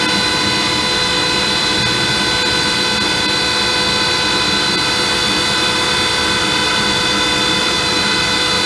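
Felder AD741 jointer-planer with a Byrd Shelix helical cutterhead running at speed: a loud, steady whine of several tones over machine noise.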